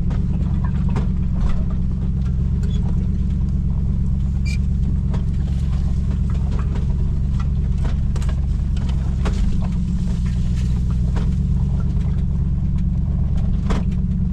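A 2004 Lexus GX470's V8 engine runs steadily at low speed while the truck crawls a rough trail. Scattered short clicks and knocks from the tyres, body and brush sound over the engine hum.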